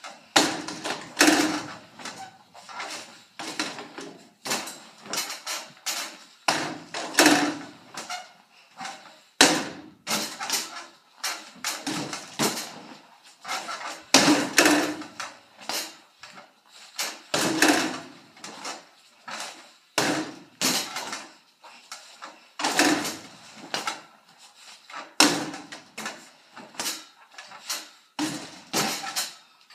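Basketballs repeatedly thudding against the backboard and rims of an arcade-style double-hoop basketball machine, an irregular run of sharp knocks about one or two a second.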